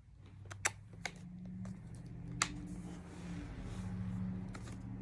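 A few sharp clicks and taps, about three in the first two and a half seconds, over a low hum that swells in the middle and eases near the end.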